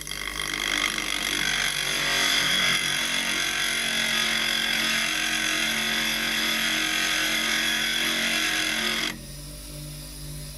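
Inch-and-a-half steel chisel held against the spinning wheel of a NuTools bench grinder: a loud, steady grinding hiss of the blade's edge being ground. It stops sharply about nine seconds in as the chisel is lifted off, leaving the grinder motor running with a low hum.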